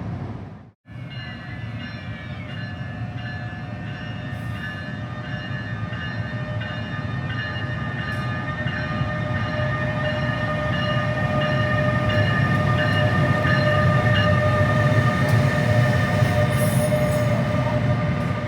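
A passenger train drawing near and passing: a low rumble with several steady whining tones over it. It grows louder until about three-quarters of the way through, then eases a little.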